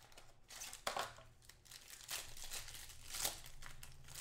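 Clear plastic cellophane wrapping on a trading-card mini box crinkling and rustling as hands pull it off, in irregular crackles with louder rustles about a second in and again near the end.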